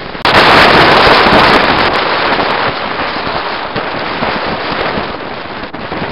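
Loud wind rushing over the microphone at an open side window of a moving vehicle. It starts suddenly about a third of a second in and eases off slowly over the next few seconds.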